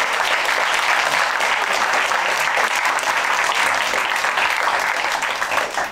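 Audience applauding steadily, a dense patter of many hands clapping that fades near the end.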